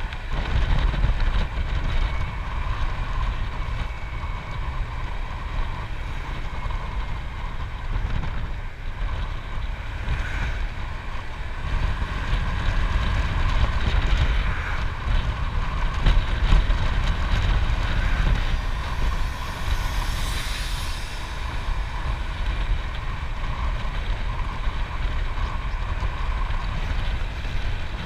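Wind buffeting a body-mounted camera microphone on a moving motorcycle at about 45 km/h, over the steady running of the motorcycle's engine. A brief louder hiss comes about two-thirds of the way through.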